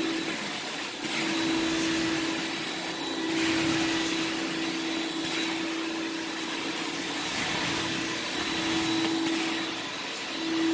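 Portable carpet extractor's vacuum motor running as the cleaning wand is drawn across shag carpet, suction hissing. A steady hum in the sound breaks off and returns several times over the strokes.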